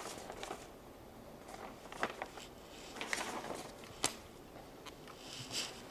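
Faint rustling and a few short, soft clicks of paper sheets being handled at a lectern, picked up by the lectern microphone.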